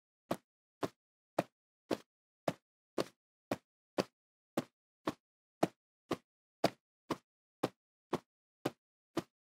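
Cartoon footstep sound effect: short, soft taps evenly spaced at about two steps a second, as a character walks along.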